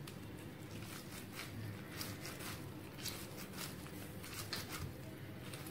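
A run of faint, short scratchy rubs of a cut lemon half, dipped in chilli powder and salt, pressed and rubbed over the kernels of a fire-roasted corn cob, about two or three strokes a second starting a second or so in, over a faint steady hum.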